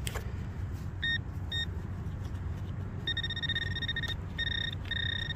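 Handheld metal-detecting pinpointer probe beeping in a freshly dug hole: two short high beeps about a second in, then long, almost continuous tones from about three seconds in. The beeping signals a metal target still in the soil. A steady low rumble runs underneath.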